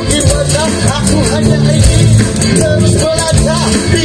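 Live band music played through a stage sound system, with a singer's voice over a steady bass line and beat.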